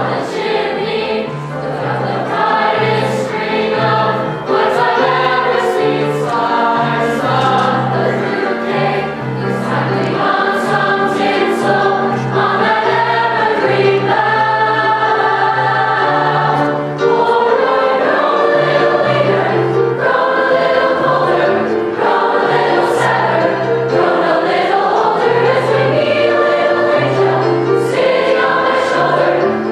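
Large high school mixed choir singing a Christmas song live, many voices together over a steady moving bass line.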